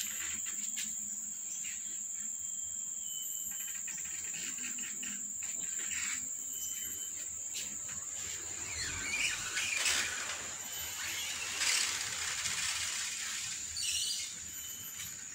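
Kittens and cats moving in a plastic tub lined with a cloth: soft rustling, scratching and light clicks of claws on the plastic, busier in the later part. A steady high-pitched insect drone runs underneath.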